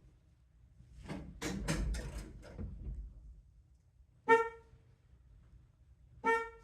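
Car horn of a 1957 Chevy 210 giving two short blasts about two seconds apart, after a spell of clattering handling noise. The horn is sounding when it is not supposed to: a fault in the newly installed steering-wheel horn kit.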